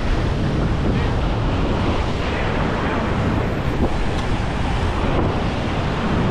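Ocean surf washing and foaming over a rocky shore ledge, with wind buffeting the microphone: a steady, loud rush throughout.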